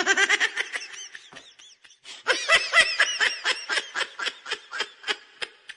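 Laughter sound effect: a long run of rhythmic, high-pitched 'ha-ha' laughs, about four or five a second, growing fainter near the end.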